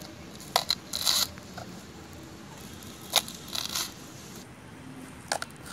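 Kitchen knife slicing through fresh green chilies on a wooden cutting board: crisp crunching cuts with sharp taps of the blade on the board, in three short clusters.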